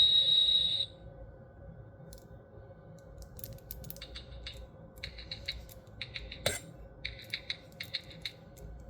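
A toy laser screwdriver's electronic sound effect, a loud high steady whine, cuts off about a second in. Then quiet clicks and creaks of the toy being handled and extended, with a few short high chirps and one sharper click.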